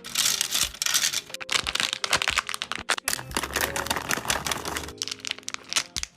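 Packaging being handled and opened: a dense run of crinkling and crackling with many quick clicks, over a light backing of music.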